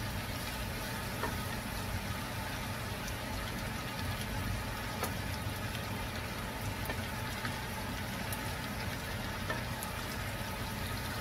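Onions and garlic sizzling steadily in oil in a non-stick wok, with scattered light scrapes and ticks of a spatula stirring them.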